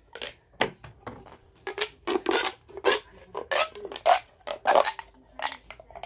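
Mini plastic pop tube fidgets being pushed together and pulled apart, their ribbed plastic sections giving an irregular run of short crackling pops.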